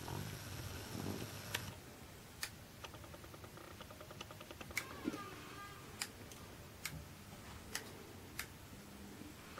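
Soldering a wire onto a circuit board: faint, scattered clicks and light taps as the soldering iron and wire are handled, about eight over the stretch.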